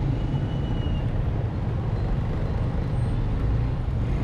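A 149cc Kavan S scooter's engine runs as the scooter slows to a crawl between cars, over the steady noise of surrounding road traffic.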